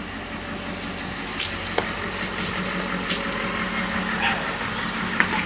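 Pickup truck engine running steadily at low speed, with a few short clicks over it.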